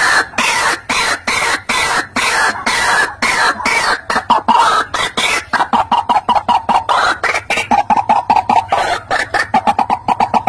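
White-breasted waterhen calling: a loud run of harsh, croaking notes repeated over and over. About halfway through it quickens into a rapid series of shorter notes at a steadier pitch.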